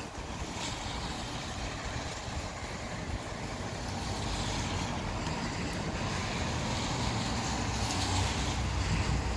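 Gusty wind with a rain shower: a steady hiss over a low rumble that grows louder in the last few seconds.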